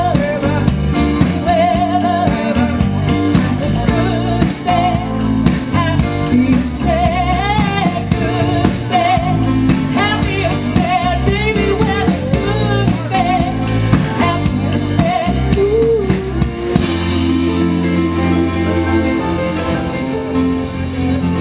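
Live band playing an amplified song: lead singing over drum kit, bass, keyboards and guitar. About four seconds before the end the singing thins out and the band holds long chords.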